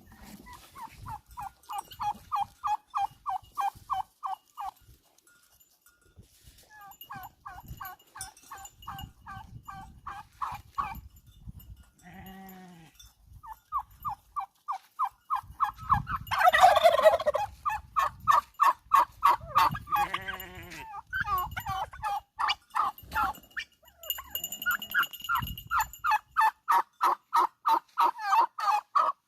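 Farmyard animal calls: long runs of a rapid, rhythmic pulsing call, about eight pulses a second, broken by a few drawn-out bleating calls from goats. The loudest bleat comes a little past the middle.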